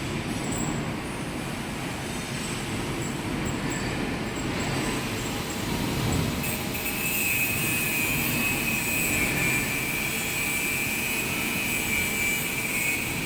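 Center lathe running while machining a flange tailpiece. A steady high whine comes in about halfway through over the machine's constant running noise.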